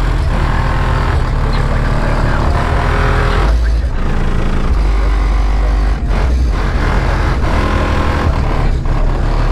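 Hip-hop beat played loud through a car audio system with heavy, booming bass, a sound test of a repaired Kenwood amplifier. The beat breaks briefly about four and six seconds in.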